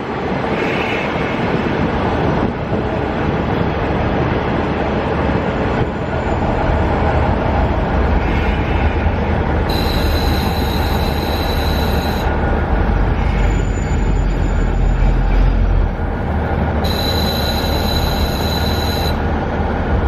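KiHa 48 diesel railcar under way, heard from inside with a window open: steady wind and running noise over the low drone of the diesel engine, which strengthens about a third of the way in. Twice, for about two seconds each, a high-pitched tone sounds over it.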